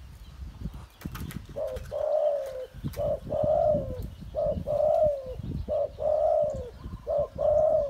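Caged dove cooing: a two-part phrase, a short note followed by a longer falling coo, repeated five times from about a second and a half in. A low rumble, like wind on the microphone, lies underneath.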